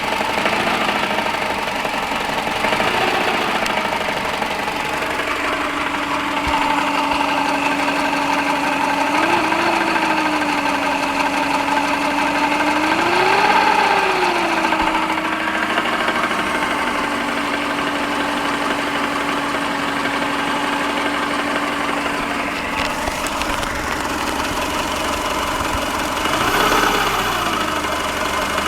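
Subaru EJ15 flat-four engine idling with a knock, the sign of an internal engine fault. Its revs rise briefly and fall back a few times, most noticeably about 13 and 27 seconds in.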